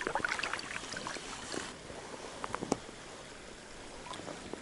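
Water lapping and splashing around an inflatable fishing raft. A run of small clicks and splashes comes in the first second and a half, with a few more about two and a half seconds in, then only a faint steady water sound.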